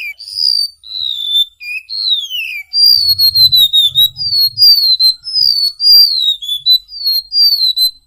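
Golden-bellied gerygone (remetuk laut) singing: a run of high, thin whistled notes, many sliding downward in pitch. The first notes are long and spaced out; from about three seconds in they come quicker, about two a second.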